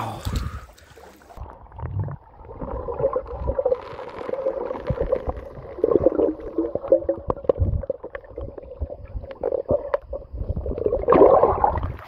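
Muffled underwater river sound heard with the camera submerged: gurgling water and many small clicks and knocks over a steady hum, louder near the end.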